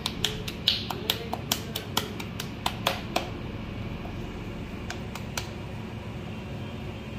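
Hands patting and slapping a ball of soft maize-flour dough between the palms to shape it, in quick slaps about four or five a second that stop about three seconds in, with two more slaps a little later. A steady low hum sits underneath.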